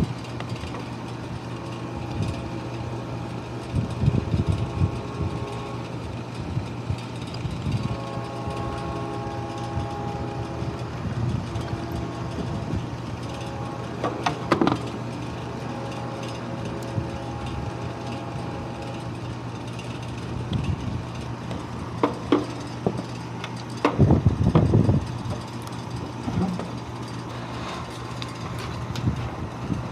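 Vehicle running on the road, heard from inside: a steady low engine and road drone with a few short knocks and bumps. Faint steady tones sound for several seconds in the middle.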